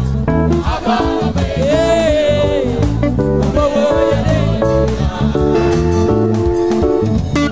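Gospel band music: guitars and bass guitar over a steady beat, with a voice singing a held, gliding phrase about two seconds in.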